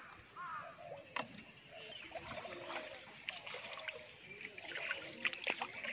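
Pond water sloshing and trickling as a person wades and tosses a plastic bottle trap into the water. A few short chirps come in the first half-second, and sharp clicks come about a second in and near the end.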